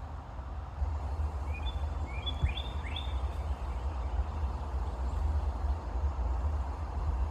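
Goslings peeping: a quick cluster of five or six short, high, upslurred chirps between about one and a half and three seconds in, over a steady low rumble.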